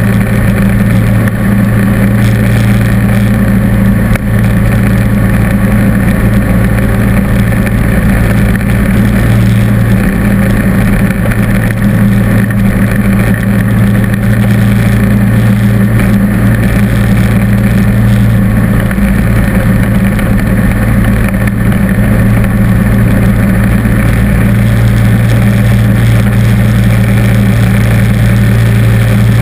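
John Deere D140 lawn tractor's engine running steadily under load, driving a snowblower attachment that throws snow out of its chute. A loud, even engine hum with no change in speed.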